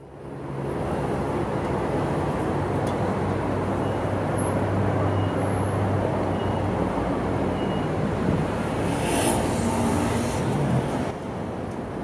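City road traffic: a steady wash of passing cars and engines with a low engine hum, fading in over the first second.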